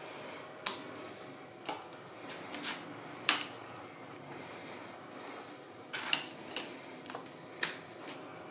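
A spatula clicking and knocking against a black steel frying pan: about nine sharp clicks at uneven intervals, over a faint steady hiss.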